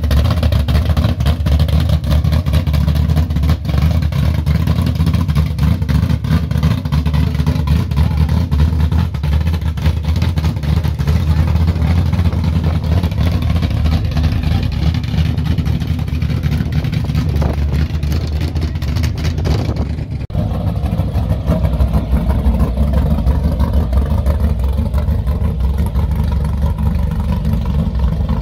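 Classic American cars' engines rumbling at low speed as they creep past one after another, a deep, steady exhaust throb with slight revving.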